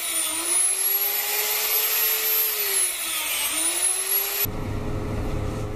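Electric die grinder with a sanding drum grinding grooves into a wooden knife handle, its high whine sagging and recovering as the bit bites into the wood. About four and a half seconds in it cuts off suddenly, leaving a low steady hum.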